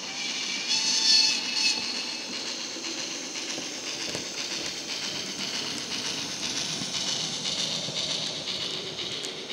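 Model steam locomotive's DCC sound decoder playing steam exhaust chuffs through its small built-in speaker, mixed with the rolling rattle of the model wagons' wheels on the track as the train passes. A brief high tone sounds about a second in.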